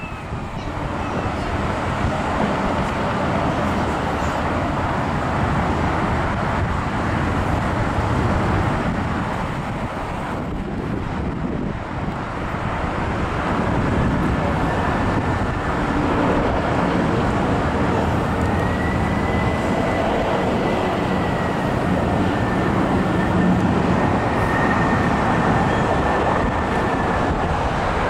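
Steady rumble of mixed vehicle and traffic noise. A thin high whine comes in about halfway through and holds until near the end.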